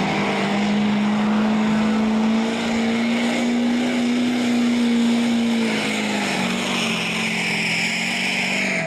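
Diesel pickup truck engine, a GMC Sierra HD's Duramax turbodiesel V8, held at high revs under heavy load while dragging a weight-transfer pulling sled. Its steady pitch sags about six seconds in as the sled's weight bogs it down near the end of the pull, and a hiss builds over the last few seconds.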